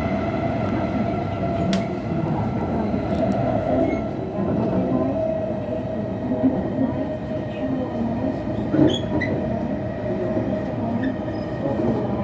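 Cabin noise of a Joetsu Shinkansen train under way: a steady rumble with a steady whine over it and a few faint clicks.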